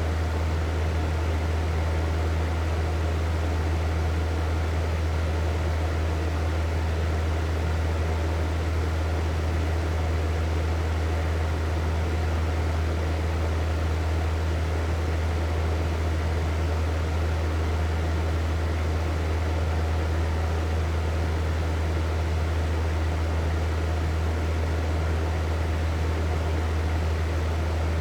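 Hair dryer running steadily: a low motor hum under a constant rush of air, with no change in speed.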